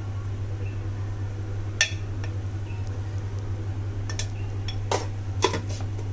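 A metal spoon scooping flour out of a glass jar, clinking against the glass a few times: four short, sharp clinks, with scraping between them. A steady low hum runs underneath.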